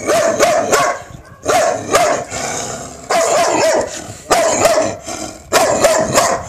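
Brown short-haired dog barking repeatedly, loud bursts of barks coming about a second apart.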